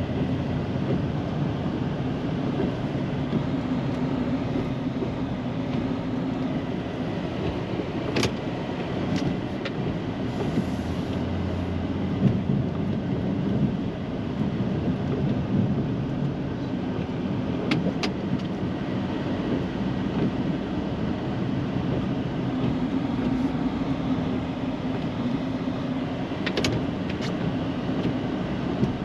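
Snow-plow truck running steadily while plowing, its engine and road noise even throughout, with a few sharp clicks now and then.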